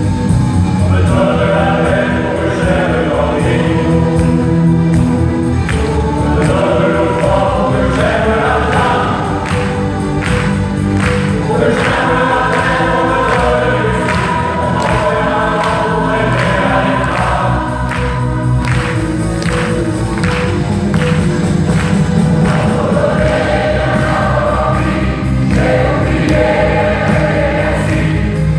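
Large mixed choir of around 145 voices singing together, with keyboard accompaniment.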